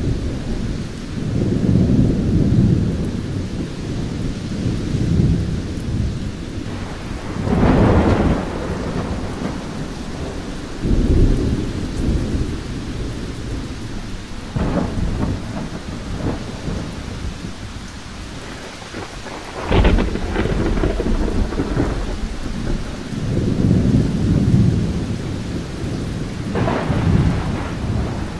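Thunderstorm: rain falling steadily with rolls of thunder every few seconds, several of them starting with a sudden crack.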